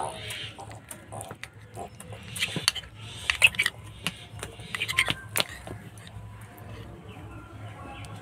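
Steel spoon clinking and scraping against a plate as it cuts through a soft, milk-soaked semolina pitha: a run of sharp clicks, loudest in the middle, dying away for the last couple of seconds.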